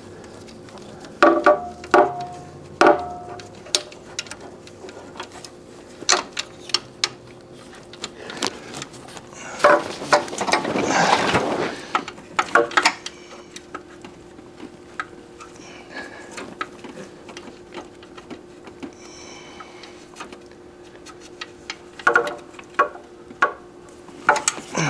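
Ratchet and socket clicking and metal tools clinking in short spells while a bolt on a car engine is worked loose, with a longer run of fast ratchet clicks about ten seconds in.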